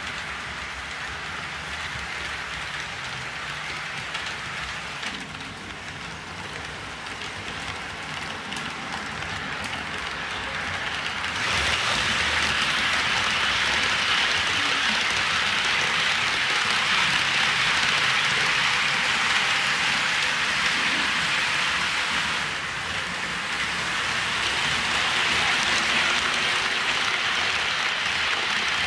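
HO scale model trains rolling along the track: a steady rushing rattle of metal wheels on rail. It gets louder about a dozen seconds in and dips briefly a little past twenty seconds.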